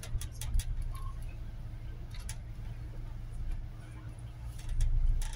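Steady low rumble of a city bus's engine heard inside the passenger cabin, with scattered sharp clicks and knocks: a few near the start and a louder cluster near the end.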